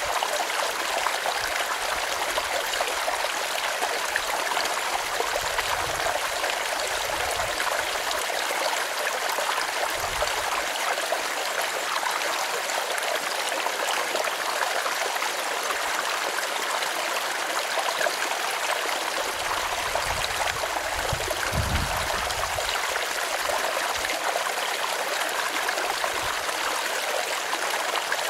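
Small mountain stream running and trickling over stones in a steady, even rush of water, with a few soft low rumbles now and then.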